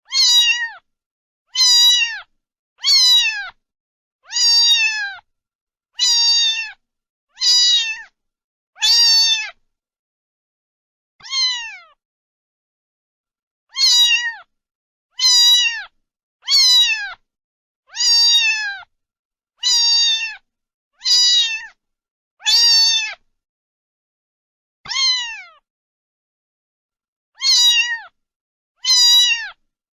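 A domestic cat meowing over and over: short, high, slightly falling meows about every second and a half, with two longer pauses.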